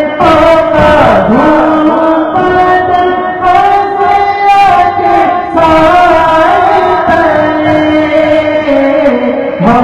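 Unaccompanied male voice singing a naat, an Urdu devotional poem in praise of the Prophet, into a microphone, drawing out long held, slowly bending notes.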